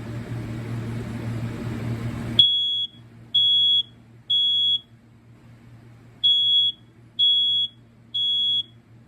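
Interconnected smoke alarm sounding in the temporal-three pattern: groups of three high-pitched beeps, each about half a second long, with a pause between the groups. It has been set off over the interconnect wiring by a BRK CO5120B carbon monoxide alarm whose own horn does not work. Before the beeping starts, about two and a half seconds in, there is a steady hiss with a low hum.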